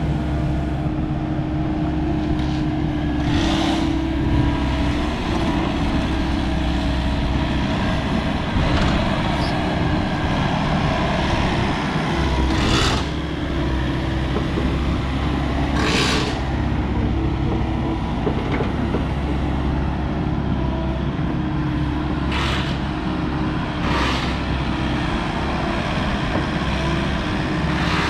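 Volvo ECR88D compact excavator at work, its Volvo D2.6H diesel engine running steadily with small shifts in pitch. Five or so short, sharp sounds from the machine are scattered through it.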